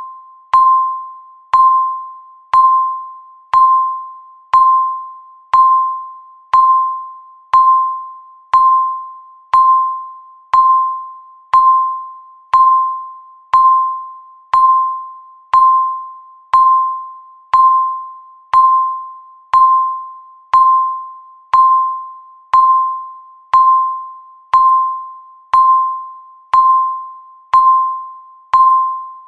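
Countdown timer's tick sound, once a second: each tick is a sharp click with a single ringing, bell-like ping that fades away before the next one, keeping an even beat.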